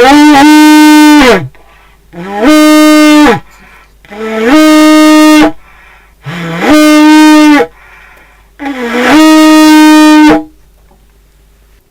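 Plastic kuduzela, a vuvuzela-style horn shaped like a kudu horn, blown in five loud blasts of about a second each with short breaks between. Each blast is one steady low note that slides up into pitch as it starts.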